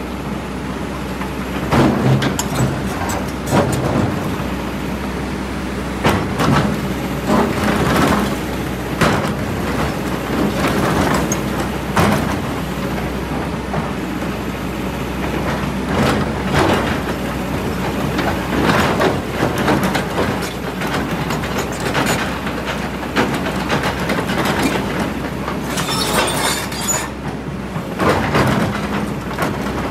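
A Kobelco hydraulic excavator's diesel engine runs steadily under load while its steel bucket scrapes and knocks against boulders and loose rock. Irregular clunks and grinding scrapes sound over the engine, with a longer, harsher burst of noise near the end.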